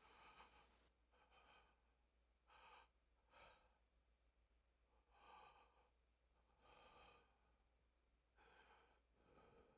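Near silence with a person's faint breathing: about eight soft breaths and sighs, irregularly spaced.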